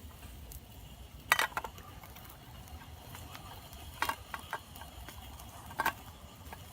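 Wood campfire burning with a low steady hiss, broken by three sharp pops about a second and a half, four and six seconds in.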